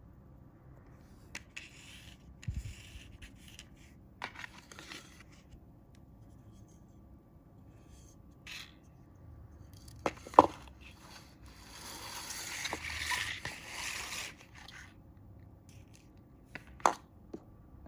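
Handling noise from fishing tackle on a tabletop: scraping and rubbing as braided line is pulled off a plastic spool and laid out beside steel hooks. A few sharp clicks, the loudest about ten seconds in and another near the end, and a rustling scrape lasting a couple of seconds from about twelve seconds in.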